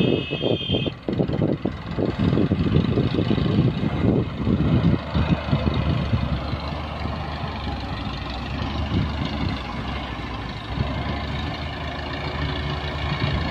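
Diesel engines of a Massey Ferguson 260 tractor and an excavator working under load as the excavator helps a loaded sand trolley up a slope. The sound is loud and uneven for the first several seconds, then settles into a steadier run from about halfway.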